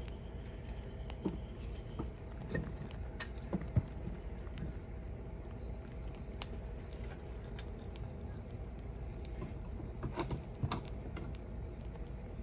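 Firewood burning: a wood fire crackling with irregular sharp pops over a steady low rumble of flame, with a small cluster of pops a few seconds in and another near the end.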